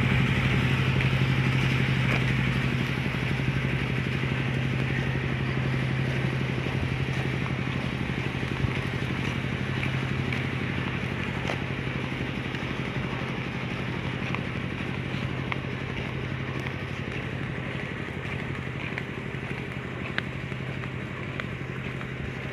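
Motorcycle engine running steadily with rushing road and wind noise, growing gradually quieter.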